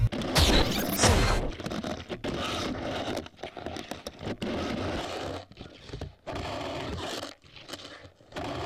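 Touring ski sliding uphill over crusty snow, scraping and crunching in uneven strokes with short pauses between, heard close up from a camera mounted on the ski.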